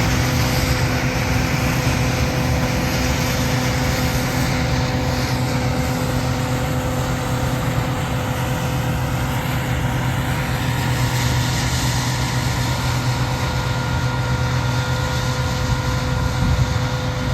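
Combine harvester running steadily at work: a constant engine hum with an even rush of machinery noise, unchanging throughout.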